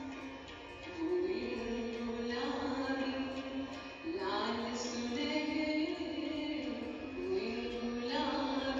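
A song sung with instrumental accompaniment: a slow melody of long held notes that slide from pitch to pitch.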